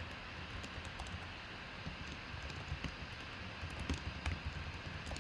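Computer keyboard typing: faint, irregularly spaced key clicks.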